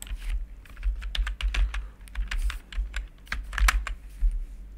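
Typing on a computer keyboard: a quick, uneven run of keystrokes entering a ticker symbol into a search box.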